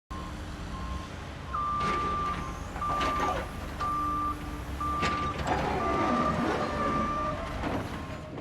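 Heavy construction machine's reversing alarm beeping steadily about once a second over the low rumble of its diesel engine, with a few metallic clanks.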